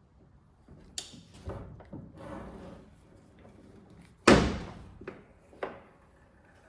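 Several clicks and knocks and a short scrape. About four seconds in comes one loud metal slam with a brief ringing decay, then two lighter knocks, consistent with a pickup tailgate being shut.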